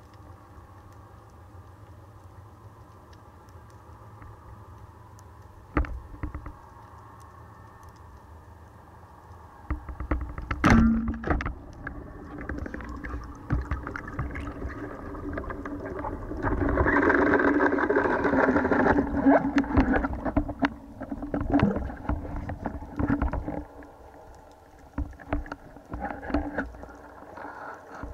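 Underwater sound through a speargun-mounted camera: a faint steady hum, then a sharp knock about eleven seconds in, followed by louder churning water noise and scattered knocks, loudest about two thirds of the way through, as the diver moves up toward the surface.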